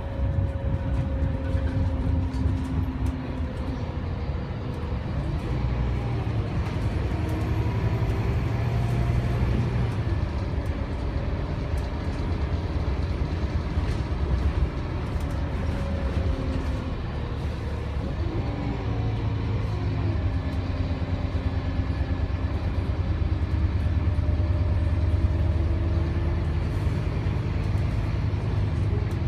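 Scania K280UB6 bus's 9.3-litre five-cylinder DC9 diesel and ZF Ecomat six-speed automatic driveline running under way, heard from inside the passenger cabin as a steady low rumble. The engine note glides up and down twice.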